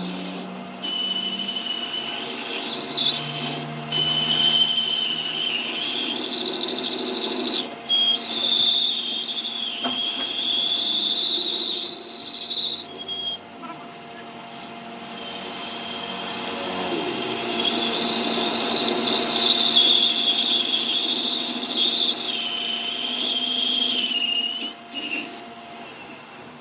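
A power tool whining at a high pitch as it works on metal, its pitch sagging and recovering as the load changes. It eases off for a couple of seconds midway, then runs again and stops near the end.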